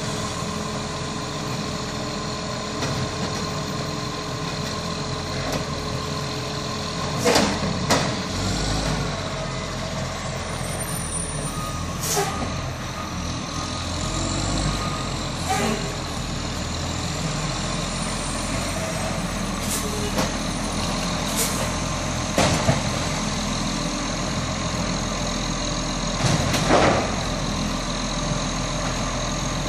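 Iveco side-loader garbage truck's diesel engine running steadily as it manoeuvres and moves off, with about eight short, sharp hisses spread through, from its air brakes.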